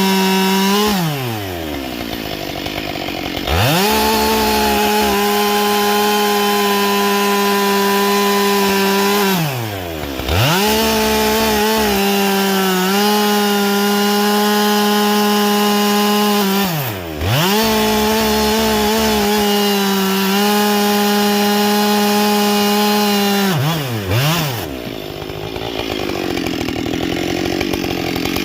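Husqvarna 572XP two-stroke chainsaw with a carbide saw chain, running at high revs and cutting wood. Four times the throttle is let off and the pitch falls away, then it revs back up. Near the end it runs lower and quieter.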